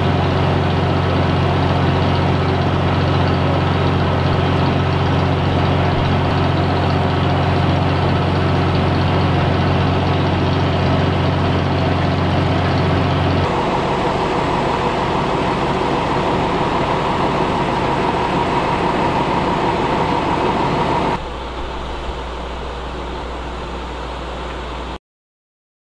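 A large vehicle engine idling steadily. Its sound changes abruptly twice: about halfway through, a higher steady tone comes in, and about three-quarters of the way through it gets quieter. It cuts off suddenly near the end.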